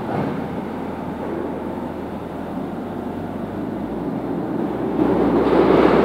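Forway WS65 skid steer loader's engine running as the machine drives, a steady mechanical rumble that gets louder about five seconds in.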